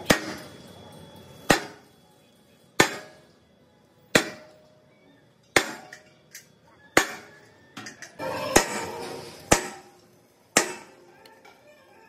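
Sledgehammer striking a steel plate: about nine hard metallic blows, roughly one every second and a half, each ringing briefly.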